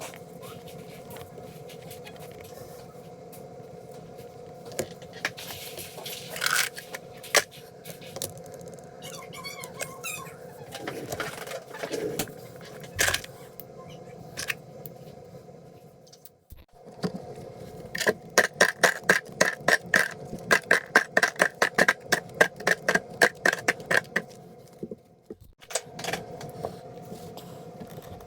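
Scraping and handling sounds of crafting materials being worked, with scattered clicks, over a steady hum. About two-thirds of the way in comes a fast run of sharp clicks, roughly five a second, for some six seconds.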